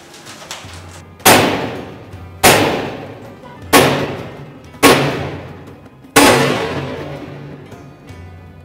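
Hand hammer striking sheet metal: five heavy blows a little over a second apart, each with a metallic clang that rings on and dies away slowly.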